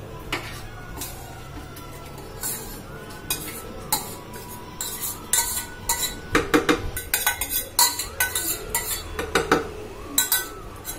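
Metal spoon scraping and clinking against a steel bowl as soft butter is scooped out into a blender jar, in quick irregular strokes that get busier and louder about halfway through.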